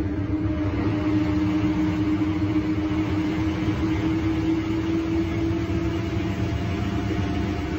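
Scania DC09 five-cylinder diesel engine (310 hp) of an articulated city bus, heard from inside the bus, running steadily under load. Its drone creeps slowly upward in pitch as the bus gathers speed.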